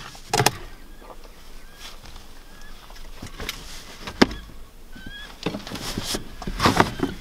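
Hard plastic bow case being handled and pulled out of a pickup's back seat, knocking and scraping against the seat and door frame, with a sharp knock about four seconds in and a cluster of clatter near the end. A few faint, short rising bird chirps sound in the background.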